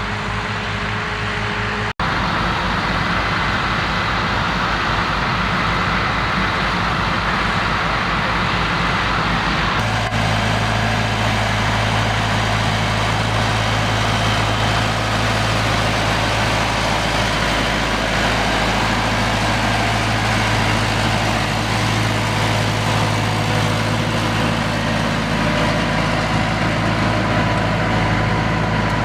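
Massey Ferguson tractor's diesel engine running steadily at working revs, a low steady drone. The sound changes abruptly twice, about two seconds and ten seconds in, after which a deeper steady hum is strongest.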